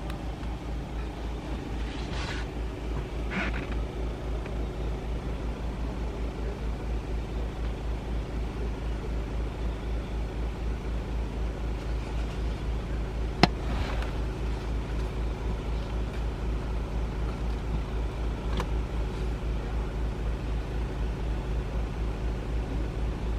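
Vehicle engine idling, a steady low throb, with a single sharp click about halfway through.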